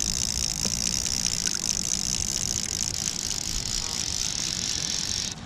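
Fly reel's click-and-pawl ratchet buzzing steadily as line is wound onto the reel while a trout is being played; it cuts off suddenly near the end.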